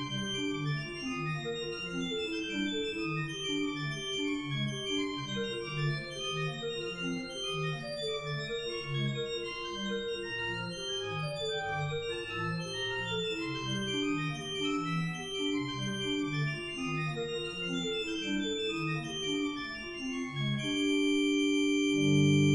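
Jones/Feenstra pipe organ playing a quick, running chorale variation in several voices, registered with a 16-foot Double Diapason and a 2-foot Fifteenth. About 21 seconds in, the motion stops on a long held chord that swells louder.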